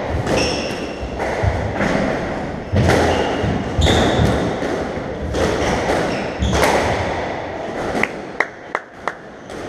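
Squash rally: the ball cracking off rackets and thudding against the court walls, each hit echoing, with shoes squeaking on the wooden floor. Near the end comes a quick run of sharp cracks.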